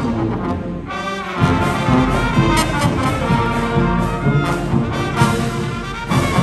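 High school marching band playing, the brass section blaring held chords over drum hits. The sound drops back briefly about a second in, then the full band comes back in.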